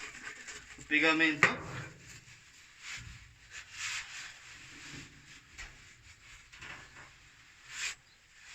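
Light clinks, knocks and rubbing as small tools and parts are handled, scattered and faint.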